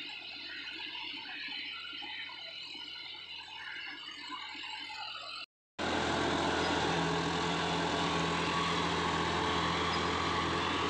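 Background music for the first half, then after a brief dropout at a cut, a John Deere 5405 tractor's diesel engine running steadily under load as it pulls a disc harrow through dry soil.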